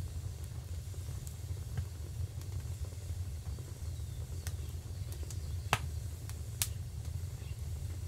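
Common starlings on a chimney giving a few sharp clicks and a faint short whistle, clustered a little past the middle, the loudest click just before six seconds in, over a steady low rumble.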